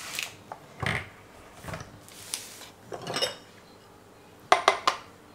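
Kitchen items and a ceramic bowl being handled and set down on a table: scattered knocks and rustles, a clink with a brief ring about three seconds in, then a quick run of four sharp taps near the end, the loudest sounds.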